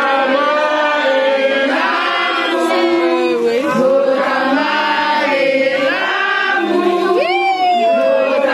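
A crowd of men and women singing loudly together in chorus, with a high rising and falling vocal cry about seven seconds in.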